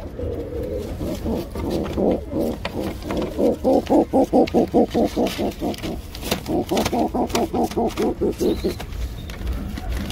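Pigeon at the nest giving a long run of rapid, low pulsed calls, about five or six a second, with a short break about six seconds in.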